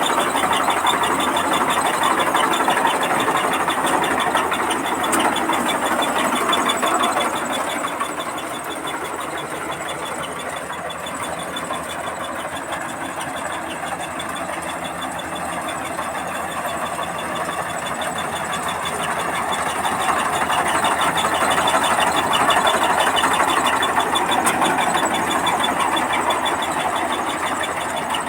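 Rice combine harvester running in the field: a steady engine and machinery drone with a fast, even mechanical rattle over it. It eases off about eight seconds in and grows louder again after about twenty seconds.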